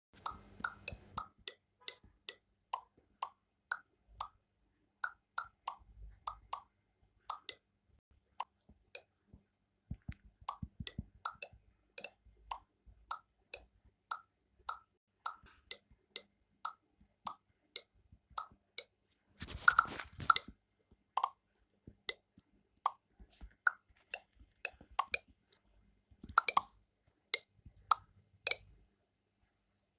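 A popping sound effect: short, separate pops with a brief tone, repeated at an uneven pace of about one to two a second, with a denser, noisier cluster of pops about two-thirds of the way through.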